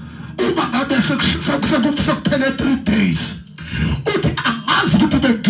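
A man preaching into a handheld microphone, his voice amplified over a PA, loud and forceful with short breaks between phrases.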